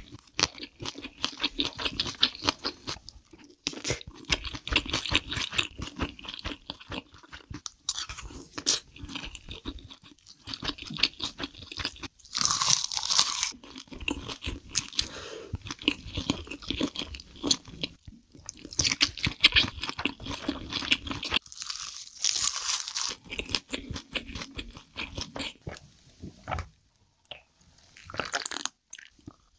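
Close-miked mukbang eating sounds: a person chewing a mouthful of spicy food, full of small wet clicks and crunches, with two louder, hissier stretches of mouth noise partway through. Near the end there is a short burst as they drink from a glass of iced tea.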